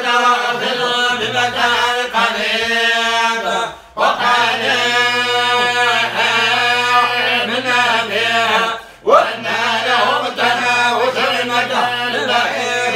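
A man's solo voice chanting an Islamic religious recitation in long, ornamented, held phrases, pausing briefly for breath about four and nine seconds in. A low steady hum sits beneath it after the first pause.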